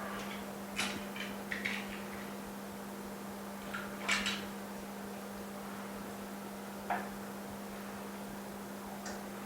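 A few light clicks and knocks of parts being handled at a laminating machine, over a steady low hum. There is a cluster of clicks in the first two seconds, a louder knock about four seconds in and a single click near seven seconds.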